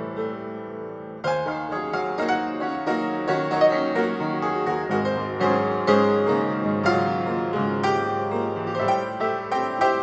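Piano music. A held chord fades, and about a second in a new phrase of notes begins.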